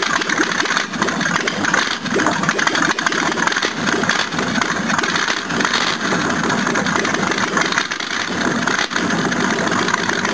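GMH 350 (5.7-litre) V8 running loud and uneven on a very rich, heavily primed mixture, using a lot of fuel at once: the state in which it throws yellow flames and heads toward flooding.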